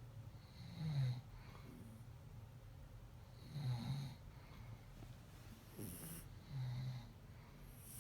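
Sleeping kitten snoring: three low snores about three seconds apart, with breathy hiss between them.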